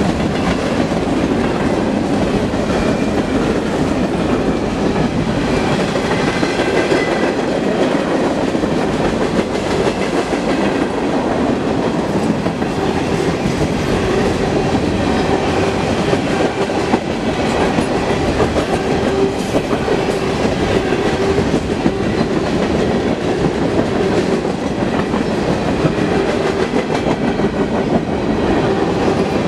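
Freight cars of a long mixed manifest train (covered hoppers, boxcars, flatcars and centerbeam flatcars) rolling past at speed. The steady rumble is dense with wheel clicks over the rail joints, and a faint steady tone joins about halfway.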